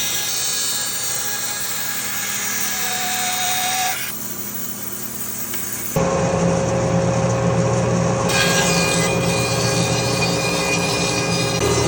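Power saw ripping quarter-sawn white oak into thinner strips: steady machine noise with the blade's running hum. It drops suddenly to a quieter stretch about four seconds in, then comes back louder about two seconds later with a strong low hum.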